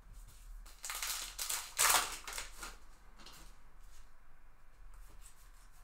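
Rustling rip of a baseball card pack's wrapper being torn open, loudest about two seconds in, followed by fainter scrapes of cards sliding through the hands.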